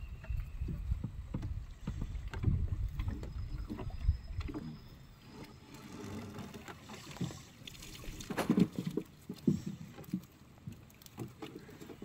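Knocks and thuds on the planks of a small wooden boat as a cast-net rope is hauled in and coiled, loudest a little past the middle. Wind rumbles on the microphone for about the first four seconds, then drops away.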